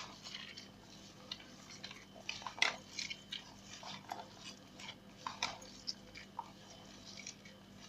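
Garlic and hot green pepper being crushed and rubbed together with salt and spices, a run of irregular small crunching and squelching clicks as their juices are worked out.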